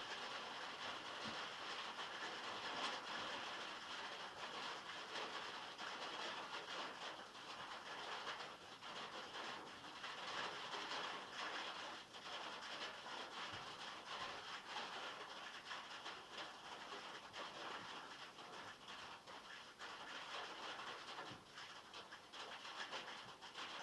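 Heavy rain falling on metal, heard from inside a shed: a dense, steady patter of countless drops.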